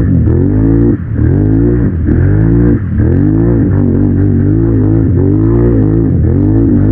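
Quad bike engine revving hard through mud, its pitch climbing and dropping back several times as the throttle is worked.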